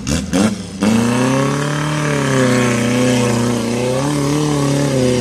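Off-road 4x4's engine held at high revs under load as it climbs a muddy slope, its pitch wavering slightly, after a few brief knocks in the first second.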